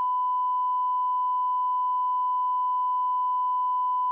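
1 kHz line-up test tone of a bars-and-tone signal: one steady, unchanging pitch that cuts off abruptly near the end.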